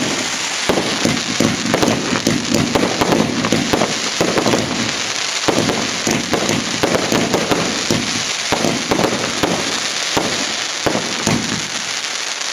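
Fireworks and firecrackers going off in a dense, continuous crackle of many overlapping bangs and pops.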